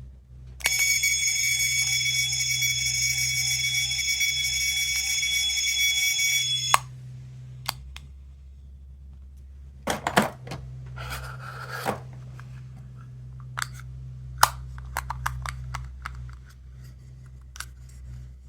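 A small electronic sound toy plays a steady, buzzing electronic tone for about six seconds and cuts off suddenly. Scattered clicks and a brief rustle of handled plastic follow.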